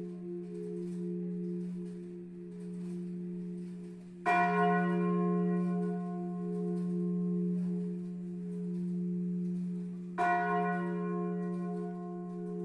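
Large church bell tuned to F3 ringing on with a steady low hum, struck twice about six seconds apart, each stroke bright and slowly dying away.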